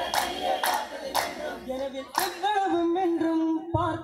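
Vattappattu: a group of men singing a Mappila song without instruments. Four sharp hand claps fall in the first two and a half seconds, and the unison singing then carries on.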